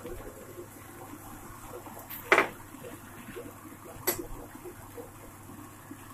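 Water spinach frying in a stainless steel pan with a low, steady sizzle, broken by two sharp metal clanks against the pan, one about two seconds in and another about four seconds in.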